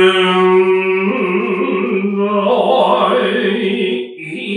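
Noh chanting (utai): drawn-out syllables sung on held notes with a slow, wavering pitch, with a brief breath about four seconds in.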